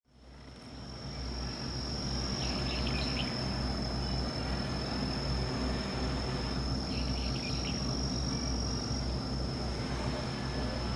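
Insects trilling in one steady high-pitched note, with two short bursts of chirping about two and a half and seven seconds in, over a low steady rumble of outdoor background noise.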